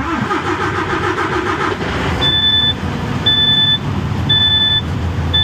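PACCAR MX-11 diesel engine in a DAF CF truck started on the starter motor, catching in the first two seconds and then idling. From about two seconds in, the dashboard warning buzzer beeps four times, about once a second, sounding the red STOP warning for air pressure too low after the start.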